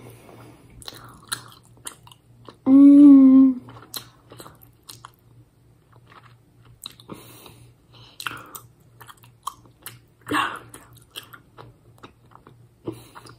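Close-up mouth sounds of someone chewing a piece of Sri Lankan muscat, a dense, chewy sweet: many small clicks. One loud hummed "mmm" lasts about a second, some three seconds in.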